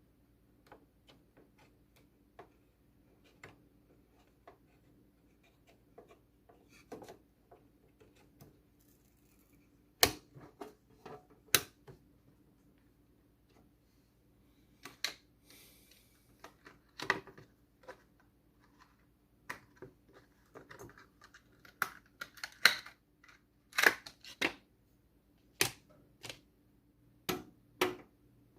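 Irregular sharp clicks and knocks of hard plastic and metal desktop PC parts being handled, sparse at first and louder and more frequent from about ten seconds in, over a faint steady hum.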